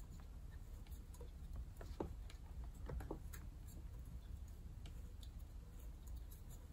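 Faint, scattered plastic clicks and ticks as a replacement lower duct hose is twisted by hand into the housing of a Shark Rotator vacuum, with a few slightly louder clicks about two and three seconds in.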